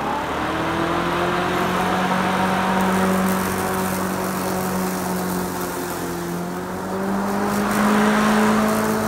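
Greenworks 60V electric lawn mower running with a cross-stacked double blade (X-blade) while cutting grass: a steady motor-and-blade hum over the rushing noise of the cut. It settles just after the start, dips slightly in pitch midway, and grows louder and a little higher about eight seconds in.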